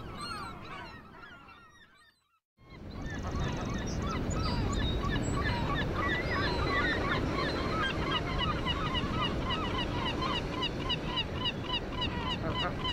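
Gull colony calling: many overlapping gull calls fade away, break off for a moment about two seconds in, then return as a dense chorus of short, rapidly repeated calls over a steady low rush.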